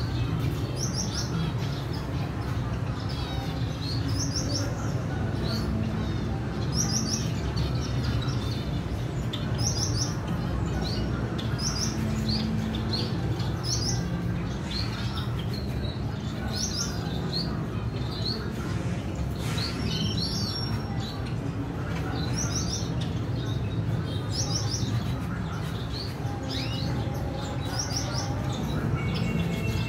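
Caged finches chirping in short, high calls, about one every second, over a steady low hum.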